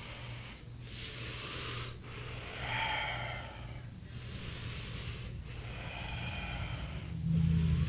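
Breathing in a series of noisy breaths, one about every one to two seconds with short gaps between them, over a steady low hum.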